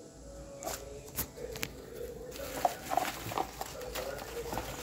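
Plastic packaging and bubble wrap crinkling and rustling as hands unwrap a small packaged item, a run of scattered clicks and crackles that gets busier about halfway through.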